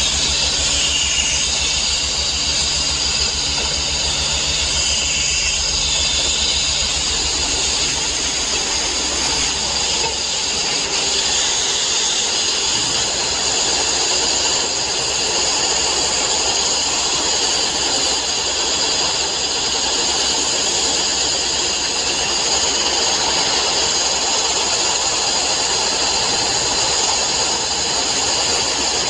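Abrasive blasting of steel plate: a loud, steady hiss of air and grit from the blast nozzle. A low, rapid throb runs under it for roughly the first twelve seconds, then fades.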